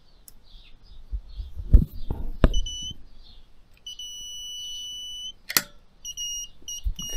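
Electronic beeper on the electric ATV's newly wired electrics, sounding as the system is switched on: a high beep in a repeating pattern of two short beeps then a long one, heard twice. A few knocks and a sharp click from hands working the wiring and handlebar switches come in between, the loudest knock just under two seconds in.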